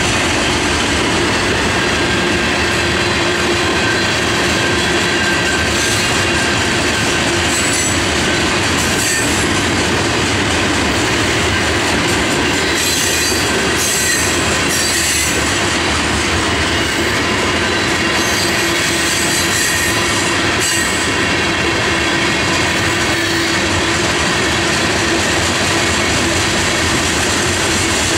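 Tank cars of a freight unit train rolling past, a steady loud noise of steel wheels running on rail, with short spells of high-pitched wheel squeal around the middle.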